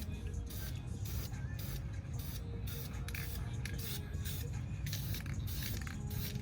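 Aerosol spray-paint can spraying a brake caliper in short hissing bursts, about two a second.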